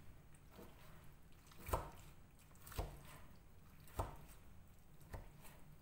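A wide knife chopping soft peppers on a silicone cutting mat: about four dull chops roughly a second apart, the first the loudest.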